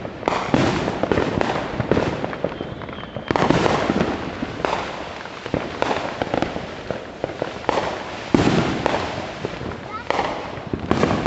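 Neighbourhood fireworks and firecrackers going off all around in a dense, near-continuous crackle of bangs. Heavier blasts stand out about every three to five seconds.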